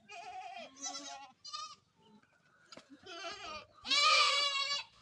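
Goats bleating: a run of short, quavering bleats, then a louder, longer bleat about four seconds in.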